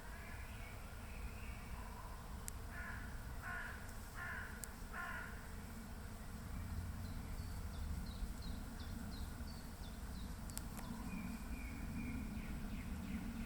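A bird gives four harsh, hoarse cawing calls a little under a second apart. A few seconds later comes a quick run of short high notes, then a brief whistled phrase, over a steady low rumble.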